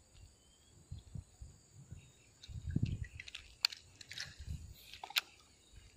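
Footsteps thudding on a grassy earth bank, with dry grass and brush crackling and snapping underfoot for a couple of seconds in the middle, over a steady high-pitched insect drone.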